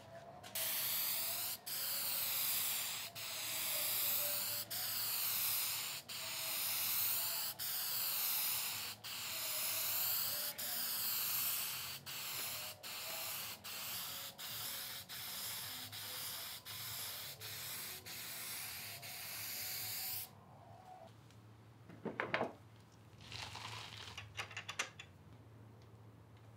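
Aerosol can of clear lacquer spraying in a steady hiss, with brief breaks between passes about every second and a half that come closer together later on; it stops about 20 seconds in, followed by a few faint knocks.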